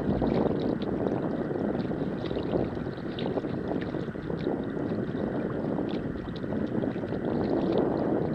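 Wind buffeting the microphone in a steady rush, with small splashes and drips of water throughout.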